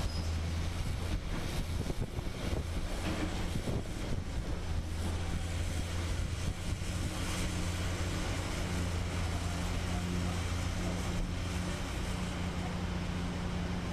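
Heavy diesel machinery engine running steadily with a low hum, with scattered knocks and clatter through the first half.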